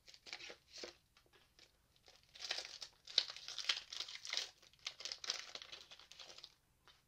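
Pokémon trading card booster pack being opened by hand, its plastic wrapper crinkling and tearing: a few scattered crackles, then a denser run of crinkling from about two and a half seconds in that stops shortly before the end.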